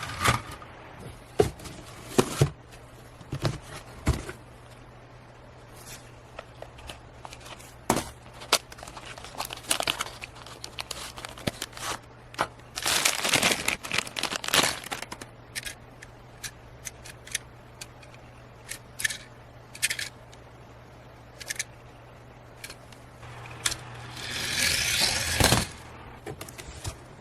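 Small hard toy cars being handled, with scattered clicks and clacks and two longer scraping runs, one about thirteen seconds in and one near the end. A faint steady low hum sits underneath.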